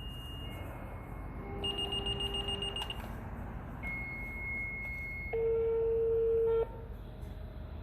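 Fire dispatch alert tones: a sequence of steady beeps at changing pitches, each held for about a second or so. The loudest is a low tone about five seconds in. A low steady rumble runs underneath.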